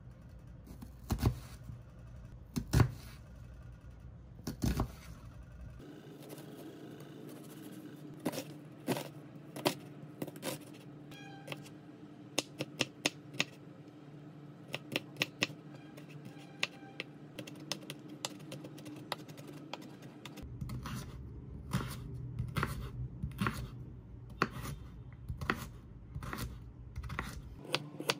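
Chef's knife chopping onion, garlic and carrot on a wooden cutting board: runs of sharp knocks as the blade strikes the board, a few loud single chops early and quicker, denser runs of chopping later.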